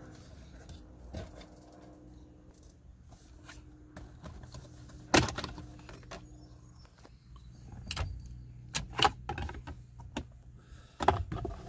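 Plastic top steering-column shroud of a Toyota 4Runner being pried loose by hand. There are scattered clicks and snaps of the trim and its clips, the sharpest about five seconds in and several more near the end.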